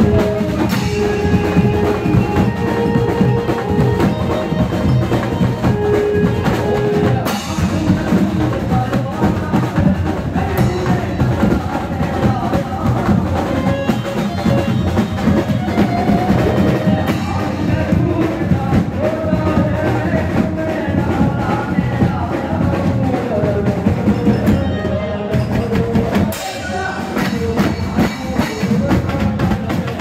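Live garba music: a man singing into a microphone over a band of drums, drum kit and percussion keeping a steady dance rhythm, loud and continuous.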